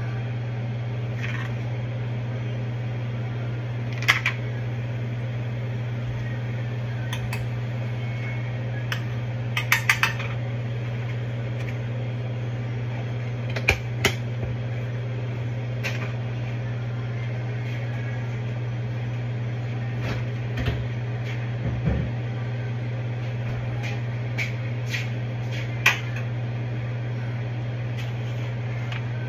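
Scattered clinks and taps of a spoon, a plastic butter tub and seasoning containers being handled while cooking, each one short and separate, over a steady low hum.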